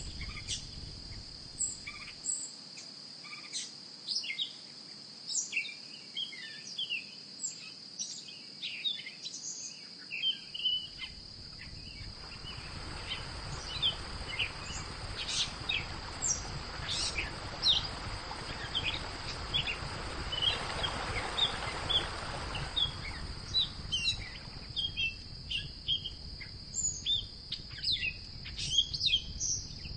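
Outdoor ambience: insects buzzing steadily at one high pitch, with many short bird chirps scattered throughout. A broad rushing noise swells up about twelve seconds in and fades away about ten seconds later.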